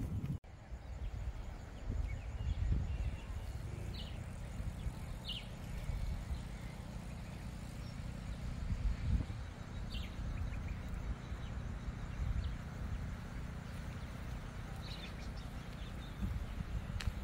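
Outdoor ambience: a steady low rumble of wind on the microphone, with about four short, high bird chirps spread through it.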